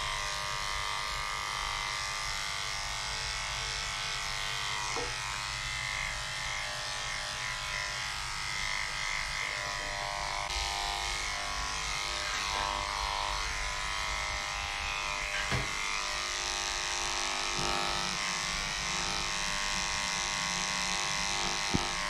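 Electric dog grooming clippers running steadily as they clip a dog's coat short.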